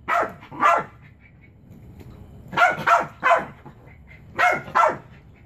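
Chihuahua barking at a toy it cannot reach: seven short barks in groups of two, three and two.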